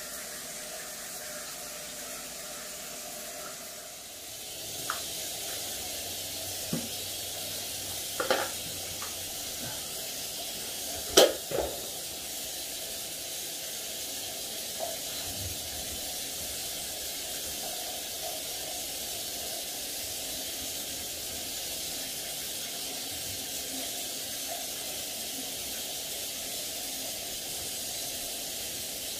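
Shower spray running steadily, a hiss that grows louder about four seconds in. A few knocks and bumps come through it, the loudest about eleven seconds in.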